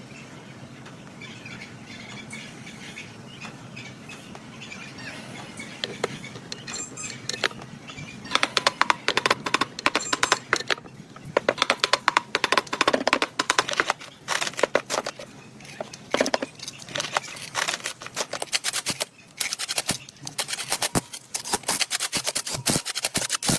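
Hand-tool work on metal: a quick, uneven run of sharp clicks and scrapes that starts about a third of the way in, after a few seconds of faint background.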